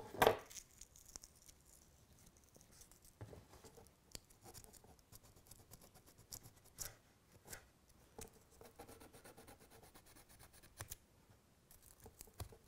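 Emery cloth rubbing on the rails of a model railway point: faint scratching with scattered small clicks and taps as the rails are polished to strip their lacquer before soldering.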